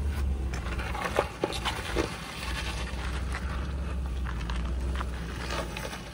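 Land Rover LR4 crawling over rough trail: a steady low engine drone with irregular knocks, clicks and crunches over it.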